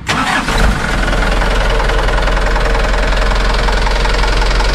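Light truck's turbocharged diesel engine starting up: it catches abruptly, runs rough for under a second, then settles into a steady, even idle.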